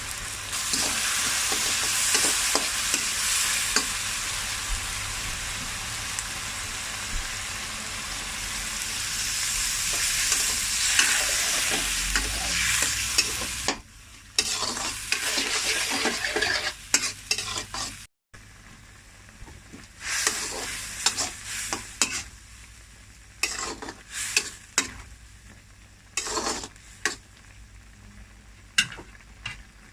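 Bihon guisado ingredients sizzling steadily in a hot pan as they are stirred to mix in the seasoning. About halfway through the sizzle drops sharply, and the rest is a quieter sizzle with scattered scrapes and knocks of the stirring utensil against the pan.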